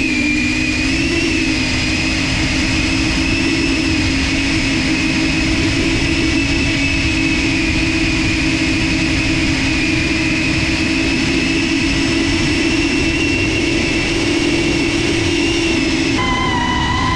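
Small FPV drone propellers on brushless motors, giving a steady whine with a buzzing undertone. Near the end the sound switches abruptly to a different, higher set of whining pitches.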